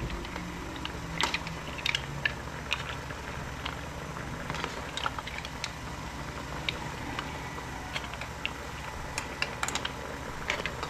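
Irregular light clicks and clinks of a utensil against a pan and dish as cooked seafood is lifted out of its coconut-milk sauce, over a steady low hum.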